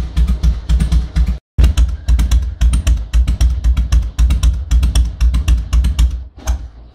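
Harley-Davidson Fat Boy's V-twin engine idling with an uneven, loping beat of exhaust pulses. The sound cuts out completely for a moment about a second and a half in, and dies away near the end.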